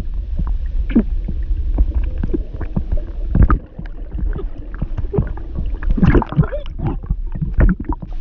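A woman voice-acting drowning: bubbling and gurgling with muffled, strained vocal sounds. Low water rumble and a stream of short bubbly pops, with a louder stretch of muffled vocalising about six seconds in.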